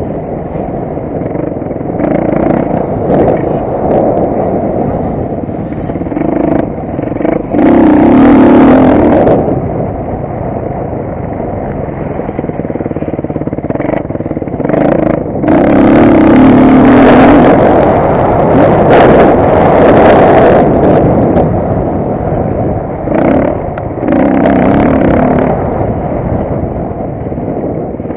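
Motocross bike engine revving, easing off and opening up again, with several loud full-throttle bursts.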